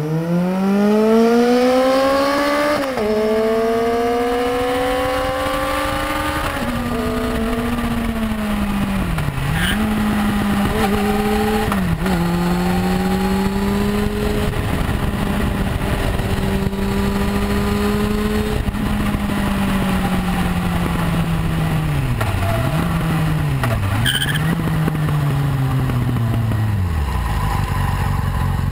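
Motorcycle with an aftermarket exhaust, heard on board: it accelerates hard, the pitch climbing with upshifts about 3 and 6.5 seconds in. It then cruises at steady revs with several brief throttle roll-offs and slows down near the end. Wind rushes throughout.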